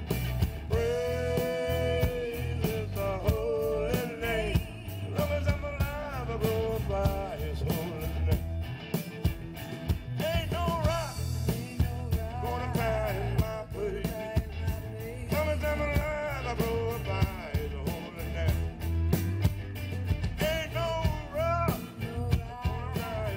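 Live band playing a blues-rock song through a PA: drums keeping a steady beat under bass and guitars, with a bending, wavering lead melody line over the top.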